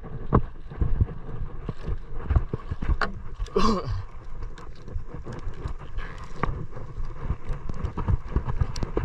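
Wind and water noise aboard a small fishing boat at sea, with many irregular knocks and thumps on the hull and a brief sliding sound about three and a half seconds in.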